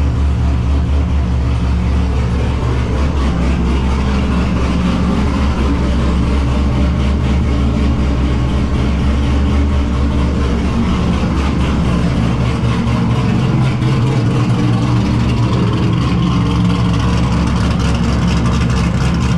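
C5 Corvette's V8 engine running steadily, with a deep, even drone that holds throughout.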